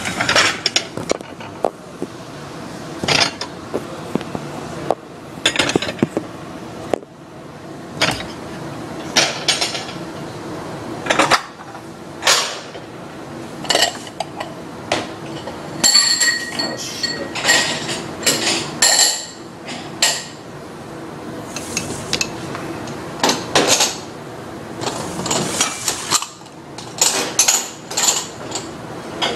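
Dishes and cutlery clinking and knocking together at irregular intervals as they are washed, with a few ringing clinks about halfway through.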